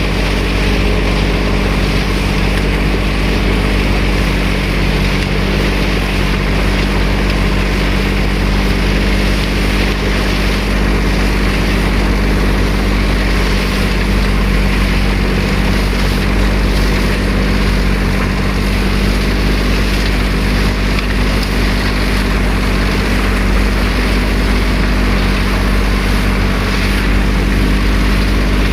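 A motor running steadily at an even speed, a constant low hum that neither rises nor falls.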